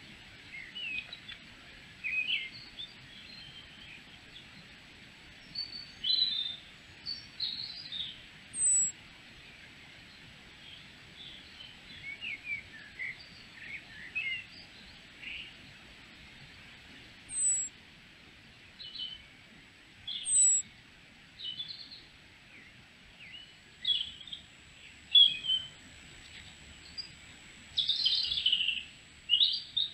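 Wild songbirds chirping and singing, short calls and phrases scattered throughout with a few thin, very high falling notes, loudest in a burst of calls near the end.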